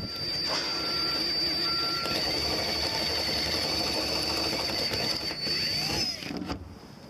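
Cordless drill running steadily with a high motor whine as it drills into the van's sheet-metal roof, stopping about six seconds in.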